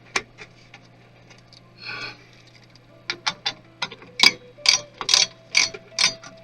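Sharp clicks and taps of metal and plastic parts and tools being handled while a desktop PC is taken apart: a short scrape about two seconds in, then a run of about nine clicks, roughly two a second. A steady low hum runs underneath.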